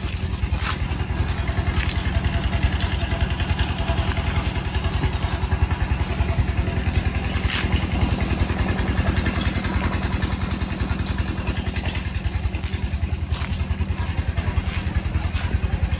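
Tube well's pump engine running steadily with a fast, even beat.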